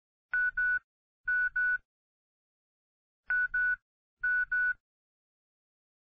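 Telephone ringing in a double-ring pattern: two pairs of short electronic rings, a pause of about a second and a half, then two more pairs.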